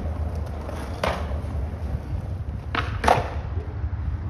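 Skateboard on a concrete floor: a steady low rumble of wheels rolling, with sharp clacks about a second in and twice in quick succession near three seconds.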